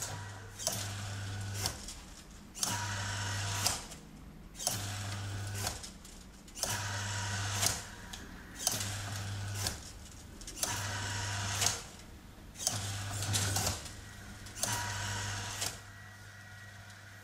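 Electric motors of large motorized window blinds running in short bursts of about a second, one roughly every two seconds, each a low motor hum with a clatter over it, switched on and off with clicks by small servo-driven switches. The bursts stop near the end, leaving a faint hum.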